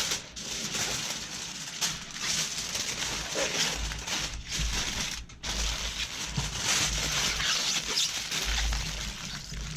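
Heavy-duty aluminium foil crinkling and rustling as it is folded and crimped tight by hand, in uneven bursts with a couple of short pauses.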